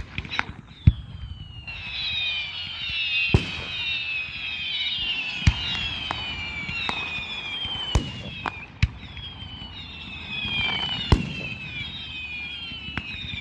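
Fireworks display: many whistling fireworks going off together, each whistle falling in pitch, with sharp bangs every two or three seconds.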